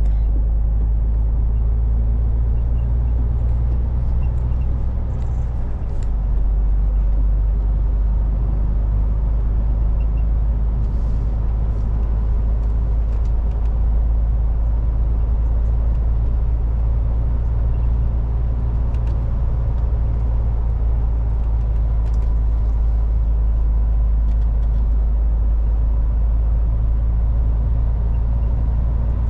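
MAN TGX semi truck's diesel engine and road noise while driving: a steady, loud low rumble. The drone shifts in pitch about six seconds in.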